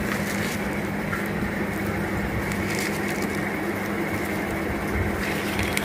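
Steady room hum and hiss, with a few faint rustles of a plastic bag and cardboard food boxes being handled.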